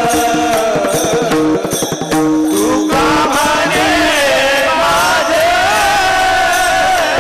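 Male voice singing a long, drawn-out melismatic line of a Varkari abhang, over a steady held drone. Small hand cymbals (taal) strike a regular beat.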